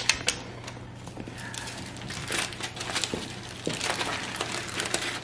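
Aluminium foil crinkling and crackling as a foil cap is worked loose and lifted off a stainless steel can, with many small clicks.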